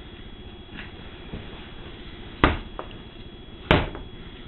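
Hatchet chopping: two hard, sharp blows about a second and a quarter apart, with a lighter knock just after the first.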